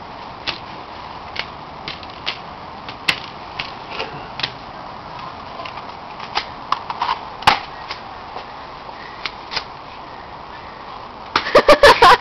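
BBs clicking and rattling as they are handled in a case and loaded into a BB gun, scattered light clicks. Near the end comes a rapid run of about eight loud snaps, the BB gun being fired.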